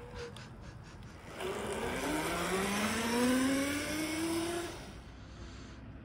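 Electric e-bike drive, a 72-volt go-kart motor on a bicycle, whining steadily upward in pitch for about three seconds as the bike accelerates, then fading away.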